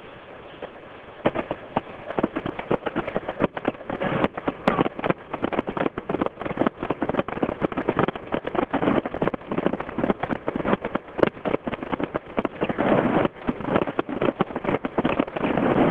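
Fireworks going off in a rapid barrage of bangs and crackles, starting about a second in and growing denser toward the end.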